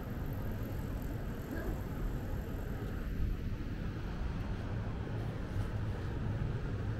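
Outdoor street ambience: a steady low rumble with no single distinct event, such as distant traffic or wind on the microphone would give.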